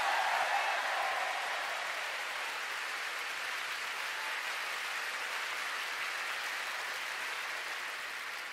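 A large concert-hall audience applauding, loudest at the start and easing off slightly toward the end.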